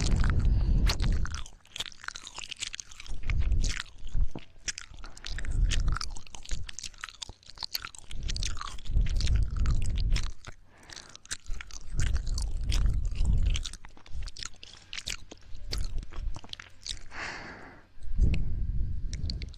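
ASMR ear-licking mouth sounds: many small wet clicks and smacks, with recurring low muffled swells every couple of seconds.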